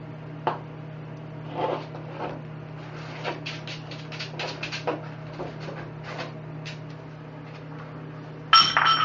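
A cat knocking its food and water bowls about on a tile floor: scattered light clicks and scrapes, then near the end a loud clatter with a brief ringing tone as a bowl tips over and the food and water spill.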